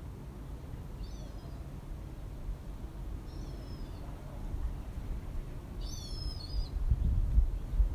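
Three short bird calls, high-pitched and about two seconds apart, the last one the loudest, over a steady low outdoor rumble that swells near the end.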